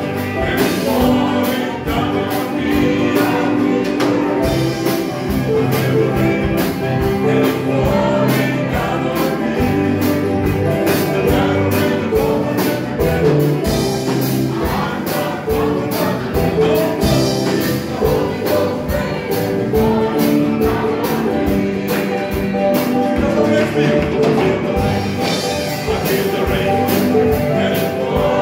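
Live gospel praise band playing an upbeat song with a steady drum-kit beat, electric guitar and bass, while several voices sing together.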